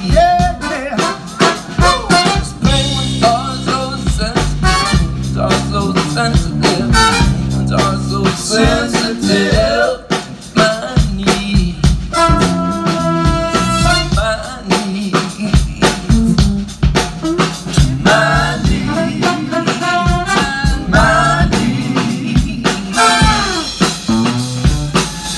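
A large band playing live, with drum kit, bass and horns, and singing in places. A held note with several overtones sounds about halfway through.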